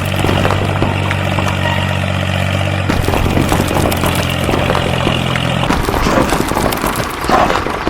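A small motor running with a steady hum and light clicking and rattling; the hum stops about six seconds in, leaving clatter.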